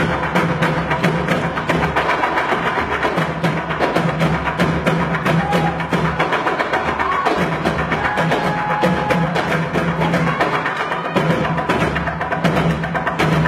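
Ensemble drumming: a fast, dense rhythm of drum and stick hits over a low pulsing tone.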